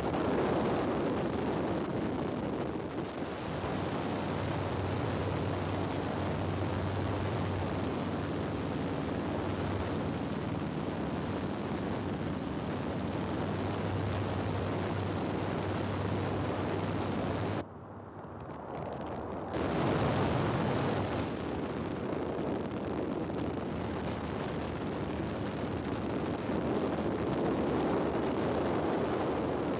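Aircraft engine running steadily with a rush of wind, heard from on board. About two-thirds of the way in the sound briefly drops and goes dull, then comes back with a louder gust of wind noise before settling.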